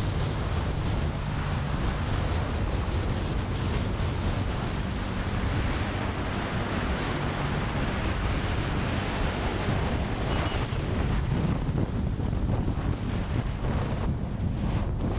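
Wind rushing over the microphone of a motorcycle rider at highway speed, with a steady engine drone underneath.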